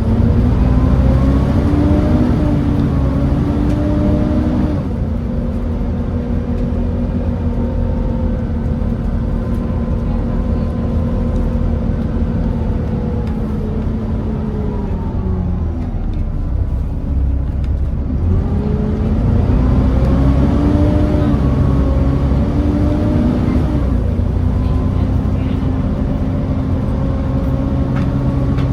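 Volvo B7TL bus's D7C six-cylinder diesel engine heard from on board. The engine note rises as the bus pulls away, then drops as the ZF Ecomat automatic gearbox changes up about five seconds in. It runs steadily, falls away around fifteen seconds, and rises again before another upshift near twenty-four seconds.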